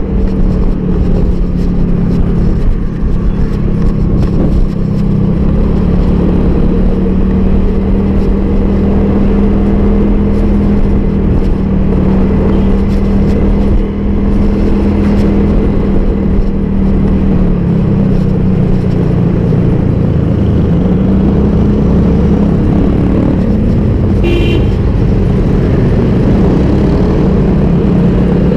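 Motorcycle engine running at a steady cruise, heard from the rider's seat over a low rumble of road and wind. The engine note sags about two-thirds of the way through, then climbs again as the bike picks up speed, and a short high beep sounds near the end.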